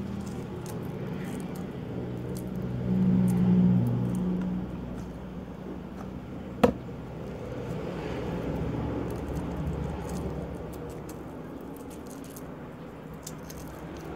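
Boiled quail eggs being peeled by hand: faint crackles of shell, with one sharp click a little over six seconds in. A low drone swells briefly about three to four seconds in.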